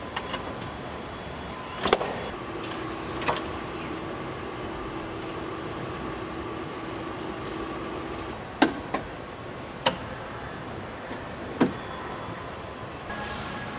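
Car-factory machinery running with a steady hum for several seconds, broken by five sharp metallic clanks.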